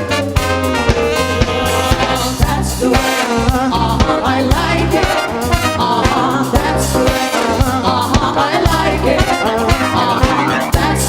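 Pop music with a steady drum beat and a brass section playing.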